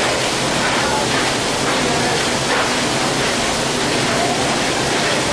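Loud, steady rushing noise like flowing water, even throughout.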